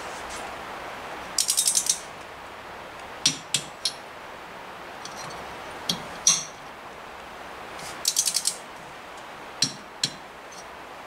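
Torque wrench ratchet clicking as bolts on a Motobecane AV7 moped engine are brought up to 8 foot-pounds: two short runs of quick clicks, about a second in and again near eight seconds, with single sharp clicks between them.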